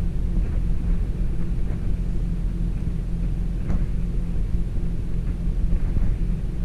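Vehicle engine running, heard from inside the cab as a steady low hum.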